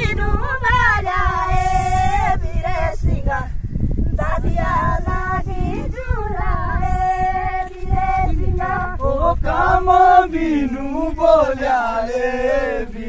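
Voices singing a song, holding long notes that bend in pitch, over a steady low rumble.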